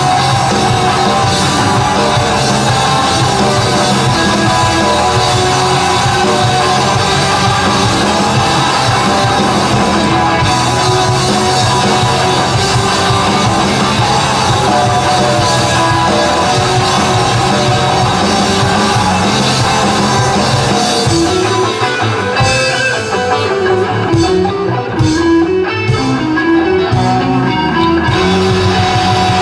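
Rock band playing live, with electric guitar and drum kit. About two-thirds of the way through, the full band drops back to a single melodic line, then comes back in near the end.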